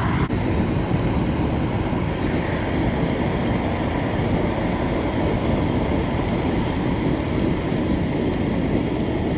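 Propane weed-burner torch burning with a steady, loud low rumble as its flame is held into a pile of green brush.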